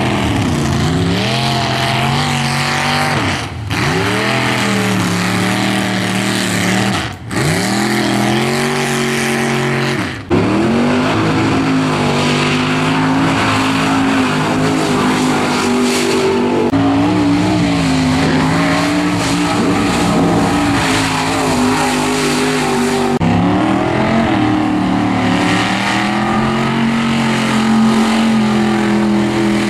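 Mud-bog truck engines revving hard through a mud pit. The engine note drops and climbs again three times in the first ten seconds, then holds high and wavering.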